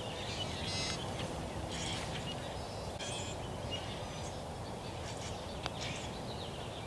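Birds calling over and over above a steady outdoor hiss, with one sharp click near the end: a putter striking a golf ball.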